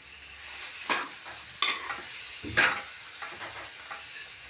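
Metal ladle stirring cooked mustard, fenugreek and spinach greens around a metal kadhai, over a steady low sizzle of the greens frying in mustard oil. Three louder strokes of the ladle against the pan stand out, about one, one and a half, and two and a half seconds in.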